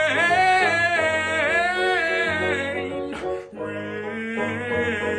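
A solo singer holding a long, drawn-out sung note on the word "rain", bending and sliding in pitch, with a brief break for breath about three seconds in before another sustained note, over a soft instrumental accompaniment.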